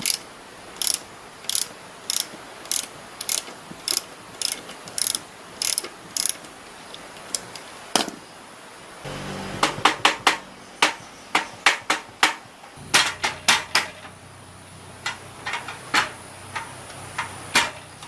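A run of short, sharp clicks and taps from hand tools working on metal engine parts, at first about one every half second, then bunching closer together in the second half.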